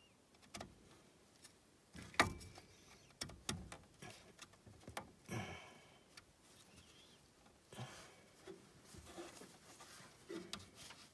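Plastic wiring plug being worked onto the three-pin socket of a replacement alternator by a gloved hand: a series of small clicks and knocks, the sharpest about two seconds in, then softer scraping and rustling of the plug, cables and glove.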